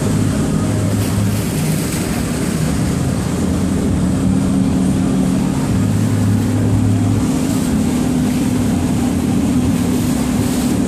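Mercury outboard engines of a 1999 Pro Line 2610 running steadily at cruising speed: a low, even drone under a rush of wind and water past the hull.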